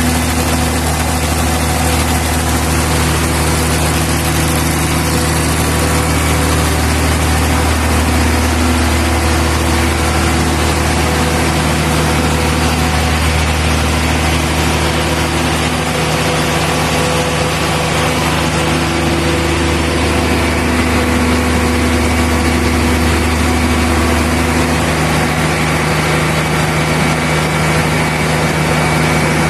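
MAN diesel engine of a 350 kVA generator set running steadily after repair work, a loud, even mechanical hum.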